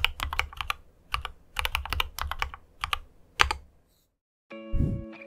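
Mechanical keyboard keys typed in quick clusters of sharp clicks, stopping about three and a half seconds in. Near the end a low thump and guitar music begin.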